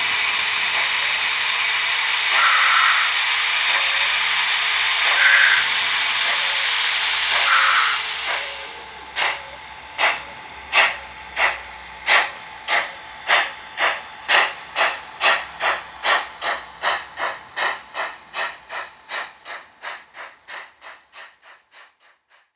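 Steam locomotive pulling away: a steady hiss of steam for about eight seconds with a few brief louder bursts, then exhaust chuffs that start about a second apart, quicken steadily and fade away as the train leaves.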